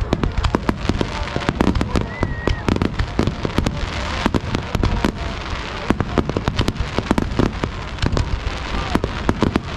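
Aerial fireworks shells bursting in quick succession: a dense run of sharp bangs and crackles, several a second, over a low rumble.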